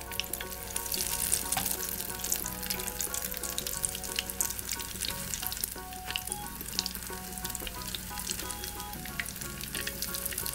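Kefir-batter fritters frying in a deep layer of hot sunflower oil in a pan, a steady crackling sizzle with frequent sharp pops, as the fritters are turned over.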